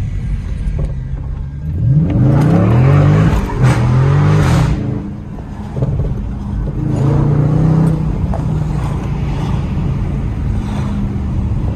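Dodge Charger Scat Pack's 6.4-litre HEMI V8 revved in four quick rising blips about two seconds in, then running at a steady low speed with another brief rise in revs near the middle.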